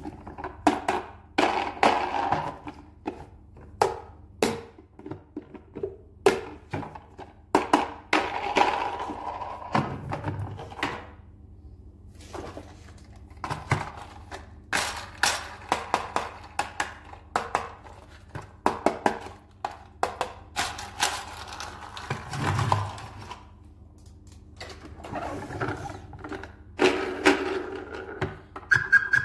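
Hard plastic toy trains being handled: irregular knocks, clicks and taps as they are picked up, turned over and set down, with scraping and rattling of plastic in between.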